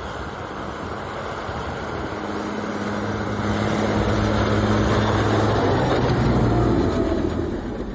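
A motor vehicle's engine running under a heavy rushing noise. It grows louder over the first few seconds and eases off near the end.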